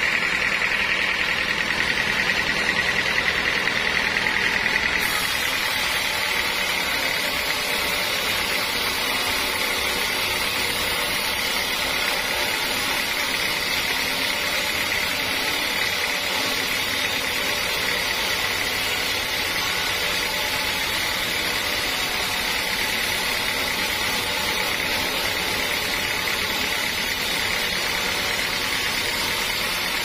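Band sawmill blade cutting lengthwise through a teak log, running steadily with a high whine over the machine's drone. About five seconds in it drops a little in level and settles.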